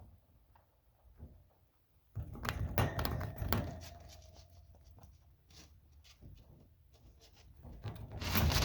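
A pet crunching and chewing a treat: irregular crisp crunches and clicks start about two seconds in, thin out, then come thick and fast again near the end.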